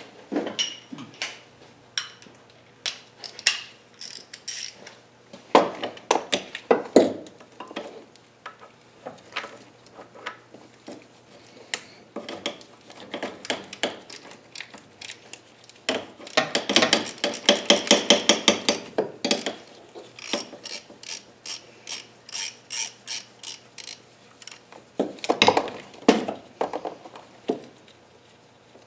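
Hand socket ratchet clicking in irregular bursts as bolts are backed out of an engine mount, with a long run of fast clicks a little past halfway and another cluster near the end.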